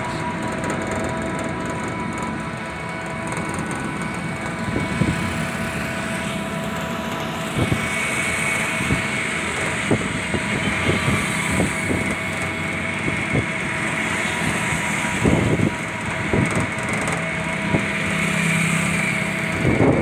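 Ride in an open-sided electric rickshaw on a paved road: a steady motor whine over tyre and wind noise, growing louder about eight seconds in, with scattered knocks and rattles from the pipe frame.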